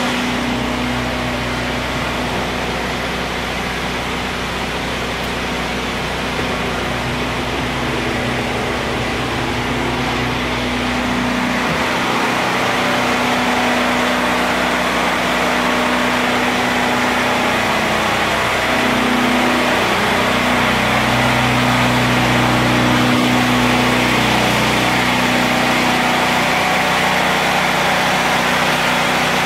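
A motor or engine running steadily, a constant hum over a wide hiss, its pitch wavering and dipping for a few seconds about two-thirds of the way through.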